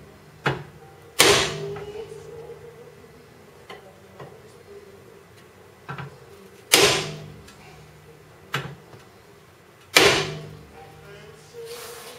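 Hammer blows on the front wheel hub assembly of a 2001 Volvo V70. There are three heavy strikes, about a second in, near seven seconds and at ten seconds, each followed by a short metallic ring, with a few lighter knocks between them.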